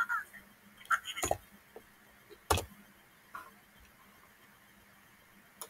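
A few sharp computer-mouse clicks: a quick cluster about a second in, the loudest about two and a half seconds in, and a couple of fainter ticks later, over a faint steady hum.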